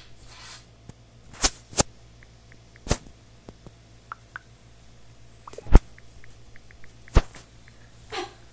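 Tapping on a tablet's on-screen keyboard while typing chat messages: irregular short clicks and soft ticks, with about five or six much louder sharp clicks among them.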